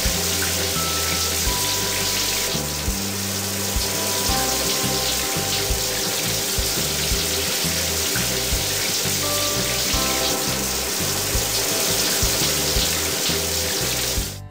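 Rushing, spraying water sound effect for a cartoon washing machine, steady and loud, over a children's music track with a pulsing bass. The water cuts off abruptly at the end.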